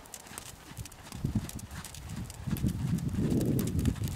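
A horse trotting on a sand arena, its hoofbeats dull thuds that grow louder about halfway through.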